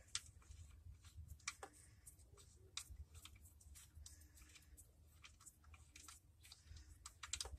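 Faint, scattered metallic clicks from the oil drain plug being turned out of a 2007 Saturn Ion's oil pan by hand, with a quick cluster of clicks near the end, over a faint low hum.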